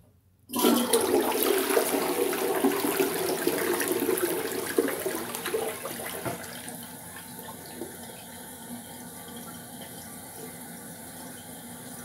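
Toilet flushing: a sudden rush of water about half a second in, strongest for the first few seconds, then settling to a quieter, steady run of water from about six seconds in. The owner says this toilet flushes slowly.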